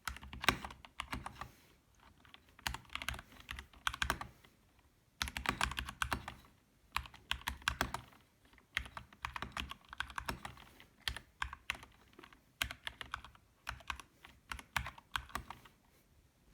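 Typing on a Kemove DK61 Snowfox mechanical keyboard with Gateron Red linear switches and stock stabilizers. The key clacks come in quick runs of about a second with short pauses between, and stop shortly before the end.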